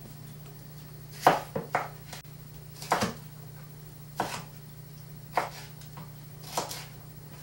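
Chef's knife cutting through bell pepper and knocking on a wooden cutting board: a quick run of three cuts about a second in, then four single cuts a little over a second apart. A steady low hum runs underneath.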